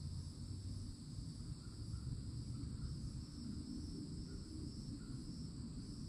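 A summer insect chorus keeps up a steady, unbroken high-pitched buzz at two pitches, over a low rumble, with a few faint short chirps between two and five seconds in.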